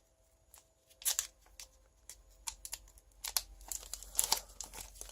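Foil Pokémon booster pack wrapper crinkling and crackling as it is handled, in irregular short crackles that start about a second in and get busier in the second half.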